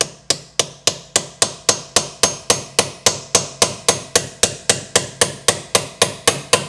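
Steady, even hammer taps, about three or four a second, on a metal installer tool, driving a brass bushing onto the kick-start idler gear stub of a motorcycle engine case.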